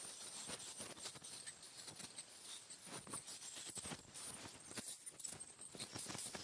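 Ultrasonic dental scaler working on a small dog's teeth: the tip clicks and scrapes irregularly against the teeth as it breaks off tartar, over a steady faint high-pitched whine.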